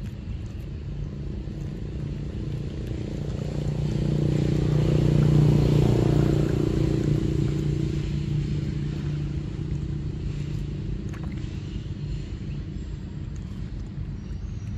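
A motor vehicle passing by: a steady engine hum that swells to its loudest about five or six seconds in, then slowly fades away.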